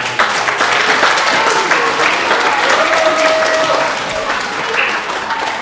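Audience applauding, breaking out suddenly and tailing off slightly near the end, with a voice calling out in the middle of it.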